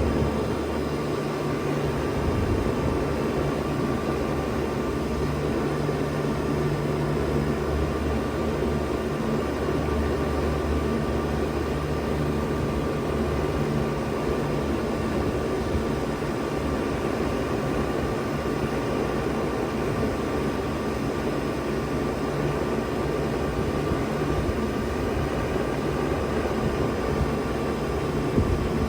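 2000 Bard 3-ton wall-hung heat pump running steadily in heat mode: a constant low hum under an even rush of air, with no change in pitch or level.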